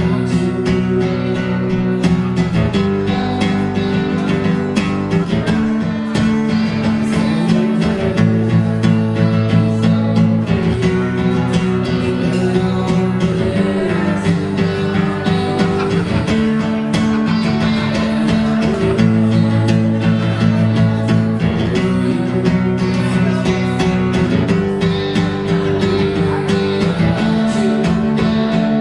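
Live guitar music from a duo: a strummed acoustic guitar with an electric guitar, held chords over low notes that change every couple of seconds.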